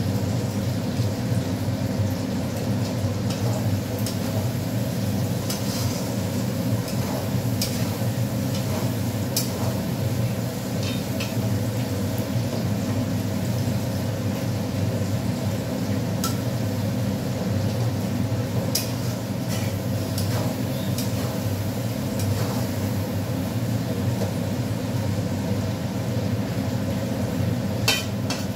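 Light clicks and taps of sliced onions and fingers against a steel wok, spread through a steady low kitchen hum, with one sharper clink near the end.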